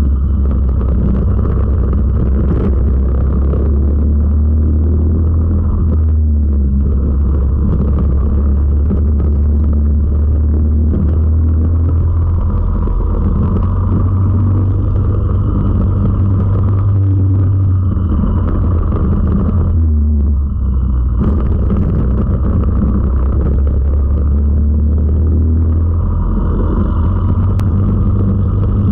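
Four-stroke racing kart engine at racing speed, heard from on board: a steady low drone that drops briefly a few times as the throttle is lifted for corners, then picks up again.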